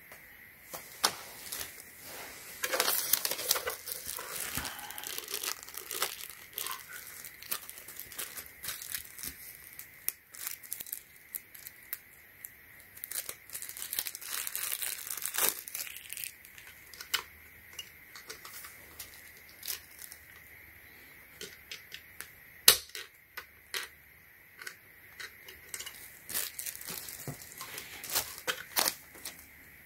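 Small clear plastic bag crinkling and tearing as it is opened by hand, mixed with scattered clicks and knocks from handling plastic parts and a cord; one sharp knock about two-thirds of the way through is the loudest.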